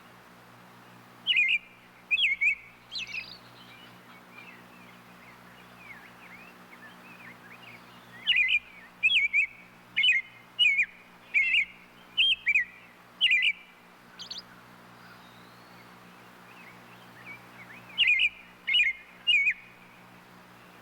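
Robin calling: short, sharp chirps in clusters, three near the start, a run of about eight in the middle and three more near the end, with softer twittering between them.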